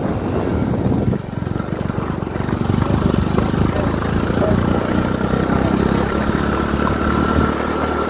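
Motorcycle engine running steadily while riding, over a low rumble from wind and road. A faint thin whine is heard over the last few seconds.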